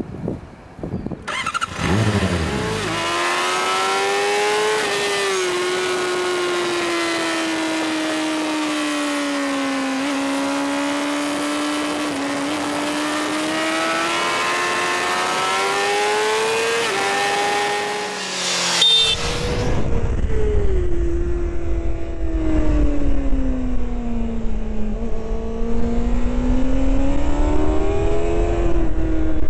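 Honda CBR600RR sportbike's inline-four engine heard on board at track speed, its pitch rising and falling as the rider works the throttle through the corners. About two-thirds of the way in the sound cuts abruptly to another stretch of riding, where heavy wind rumble on the microphone lies under the engine.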